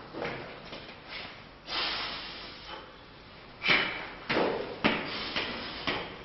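Hard shoes stepping on concrete stairs in an echoing stairwell. The steps come as sharp knocks, about two a second in the second half, with a louder knock about three and a half seconds in.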